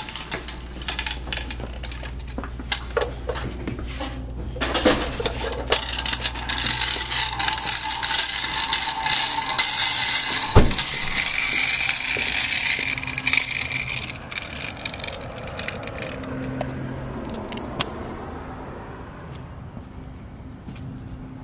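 Mousetrap car with paper-plate drive wheels rolling, its axles and wheels clicking and rattling. A hiss rises through the middle, and one loud thump comes about ten seconds in.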